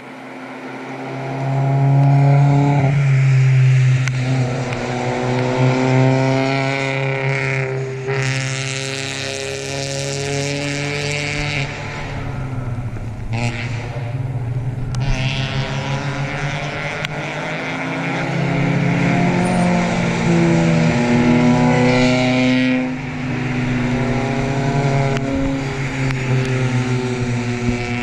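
Several four-cylinder Spec Miata and B-Spec race cars driving past one after another on a wet track at an easy cool-down pace after the checkered flag. Each engine note rises and falls as the car passes, with a hiss of tyre spray that swells with each car.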